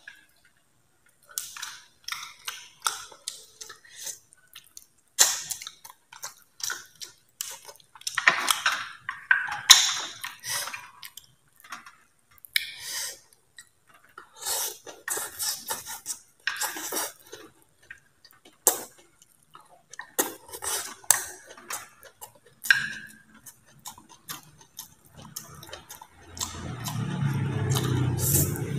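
Eating at a table: chopsticks clicking against a plate and bowl, with chewing and noodle-slurping mouth sounds, in scattered short clicks and smacks. In the last few seconds a louder, steady low rumble comes in.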